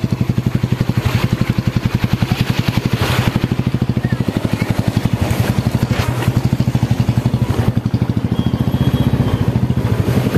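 Small motorcycle engine running steadily at low revs with an even, pulsing throb.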